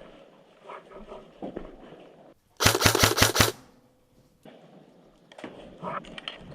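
Airsoft electric rifle firing one short full-auto burst, about seven shots in under a second, roughly a third of the way in. Faint scattered clicks and rustles before and after it.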